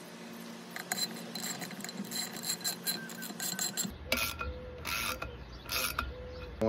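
Ratchet socket wrench clicking as it runs a nut down a bolt onto a washer: a quick run of small clicks, then a few louder rasping strokes in the second half.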